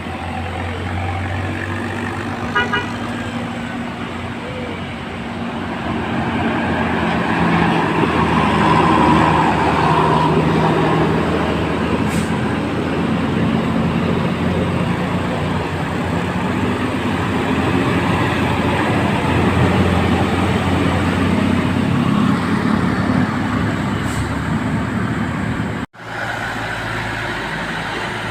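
Bus engine running amid steady road traffic noise, with no horn melody playing. A brief short beep sounds about two and a half seconds in.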